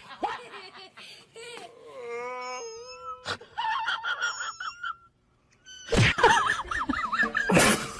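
A run of short animal-call clips: a long wail that glides in pitch, then higher wavering calls, and from about six seconds in, loud noisy bursts mixed with more wavering calls.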